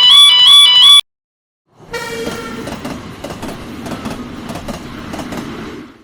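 Railroad crossing warning bell ringing its two-tone alternating 'kan-kan' pattern, cutting off about a second in. After a short silence a train passes: a brief horn, then a steady rumble with wheel clacks about twice a second, which stops abruptly near the end.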